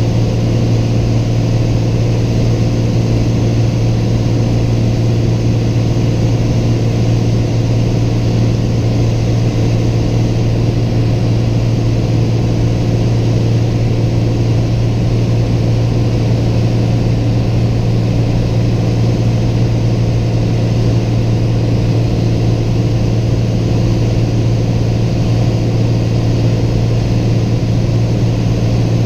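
Single-engine Piper light aircraft's engine and propeller droning steadily in flight, heard inside the cockpit: one unchanging deep tone with its overtones and an even rush of noise.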